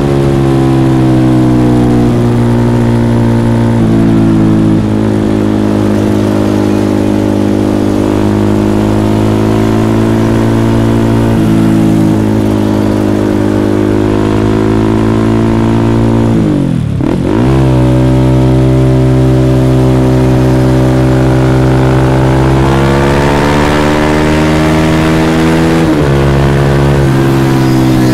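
Small sport motorcycle engine running hard at a steady, fairly high pitch while under way. About two-thirds of the way through the revs drop sharply and climb straight back, like rolling off the throttle for a gear change. The revs rise again near the end.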